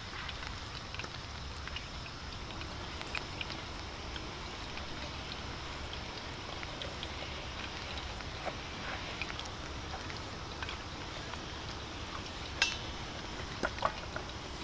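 Kushikatsu deep-frying in hot oil, a steady sizzle with scattered small pops. A sharper click comes about twelve and a half seconds in, with a few more just after.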